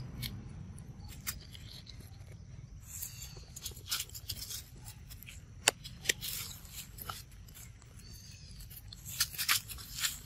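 Dry leaf litter crackling and rustling in scattered sharp clicks, several louder crunches about two-thirds of the way in and near the end, over a low steady rumble.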